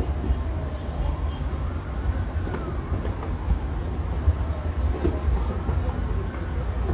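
Steady low rumble with faint emergency-vehicle sirens wailing, rising and falling in pitch, and a few brief knocks.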